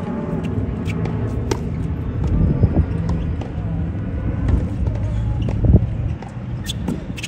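Tennis practice on a hard court: a few sharp pops of racket strings hitting the ball, one about a second and a half in and a couple near the end, over a steady low rumble.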